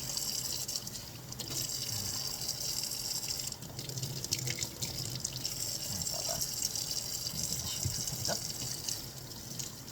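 Tap water running steadily in a stream, splashing as a cat's fur is rinsed.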